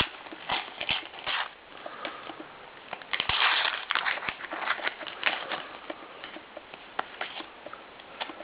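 A paper sticker packet crinkling and crackling as it is handled and torn open, with a longer, louder rip about three seconds in.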